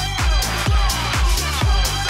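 Electronic dance music in a house style, with a steady kick drum about two beats a second under sustained synth chords.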